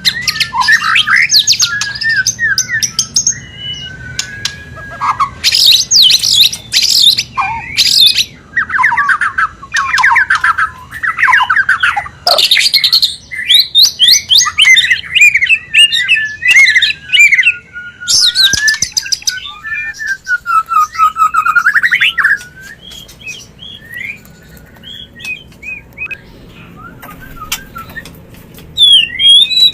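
White-rumped shama (murai batu) mating calls: fast chattering trills, harsh squawk-like notes and whistled sweeping phrases. For several seconds before the end the calls thin to softer scattered notes, then loud calling resumes.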